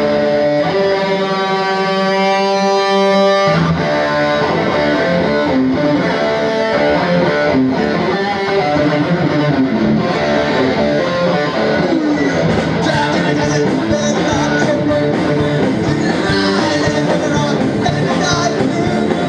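Live rock band playing an instrumental passage. An electric guitar holds a single ringing note on its own, then the bass and drums come in about three and a half seconds in, and cymbals crash through the last several seconds.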